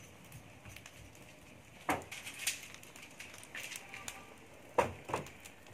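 Massed matchsticks burning: faint crackling with four sharp pops, a pair about two seconds in and another pair near the end.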